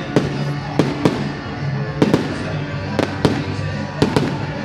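Aerial fireworks bursting in a quick, irregular run of sharp bangs, two or three a second, over background music.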